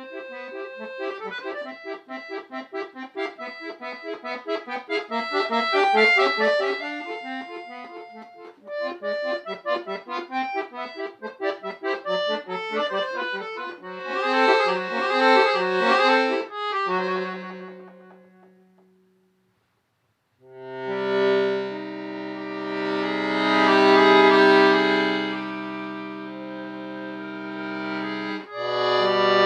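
Solo accordion performance: quick runs of notes, then a stretch of wavering notes, a pause of about a second and a half, and then loud sustained chords over held bass notes.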